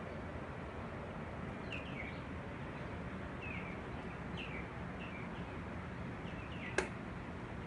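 A bird calling repeatedly with short falling chirps, often in pairs, every second or so, over a steady outdoor background hiss. A single sharp click comes near the end.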